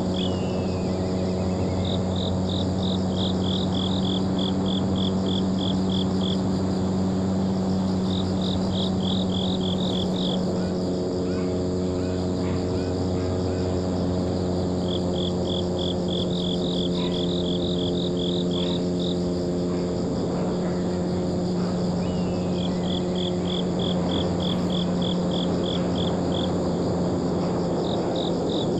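Insects chirping in repeated trains of rapid high pulses over a steady low hum.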